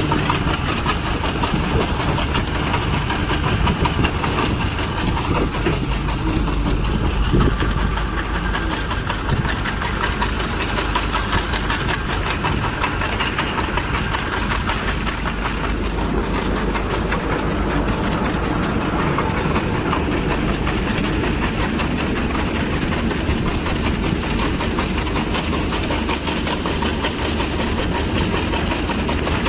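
Mini tractor combine harvester running steadily, with engine noise under a dense, even rushing hiss from the threshing and cleaning works.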